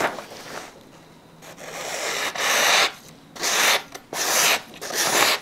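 Blade of a Cold Steel Survivalist drop-forged knife slicing through a sheet of paper, a hissing rasp with each stroke: one longer cut that builds up, then three shorter ones. This is a sharpness test of the factory edge, not resharpened.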